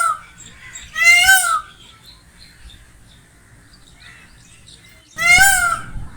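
Peacock calling: loud, short wails about half a second long, each rising then falling in pitch. One call ends just as the clip starts, another comes about a second in, and a third follows after a pause of about three seconds.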